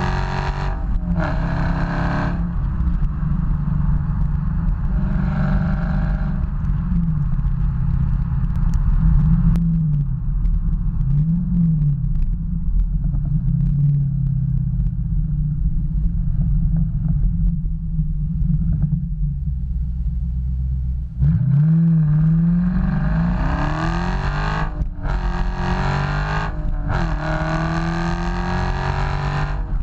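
Stock exhaust of a 2015 Dodge Challenger Scat Pack's 392 (6.4-litre) HEMI V8, heard close up with the car on the move. It pulls hard at first with its pitch climbing, broken by short dips as it shifts up, then settles into a low, steady rumble while cruising and lifting off. About two-thirds of the way through a sharp throttle blip starts another hard pull through two more upshifts near the end.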